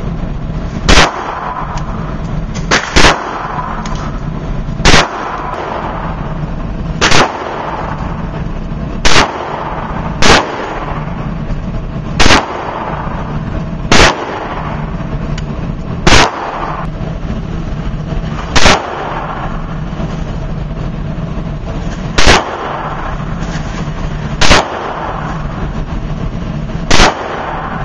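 A string of single gunshots at a shooting range, about fourteen in all, each a sharp loud crack spaced roughly two seconds apart at an uneven pace, over a steady low background hum.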